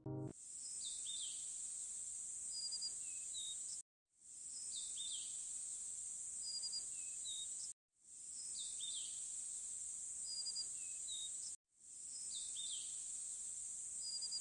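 Faint looped nature ambience: a steady high insect drone, like crickets, with a few short bird chirps. The same clip of about four seconds plays four times, cutting out briefly between repeats.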